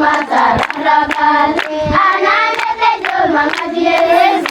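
A group of girls singing together, with hands clapping along.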